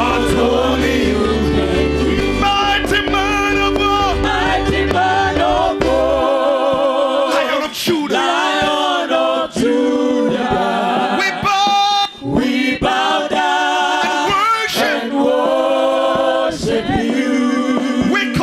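Gospel praise-and-worship singing by a group of voices, with wavering vibrato on the held notes. A low bass accompaniment stops about six seconds in, leaving the singers nearly unaccompanied.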